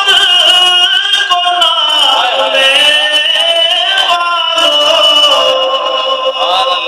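A man singing a devotional poem solo in long held notes that waver and bend in pitch.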